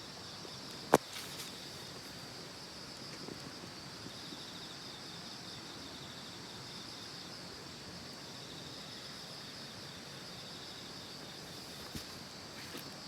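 Insects trilling in a steady, high-pitched outdoor chorus, with a single sharp click about a second in.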